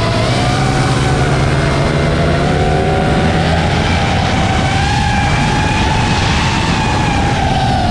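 Small high-revving motors whining steadily, their pitch dropping sharply at the start, then wavering up and down.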